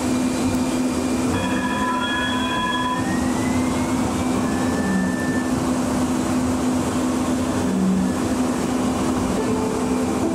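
MUNI light rail vehicle heard from the driver's cab as it runs along street track, with a steady electric hum throughout. A few high whistling tones sound early, and an electric whine rises in pitch about two to four seconds in as the car gathers speed.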